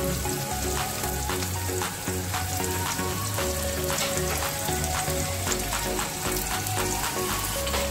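Sliced red onions and garlic sizzling in butter in a wok, with a constant fine crackle of popping fat. Background music with a steady low beat plays underneath.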